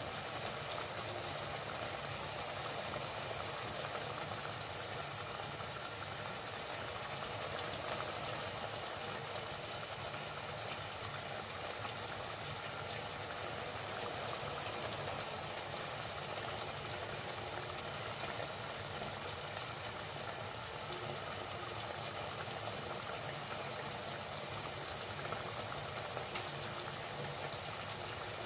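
Chicken and grated tomato frying in oil in a cooking pot: a steady sizzle.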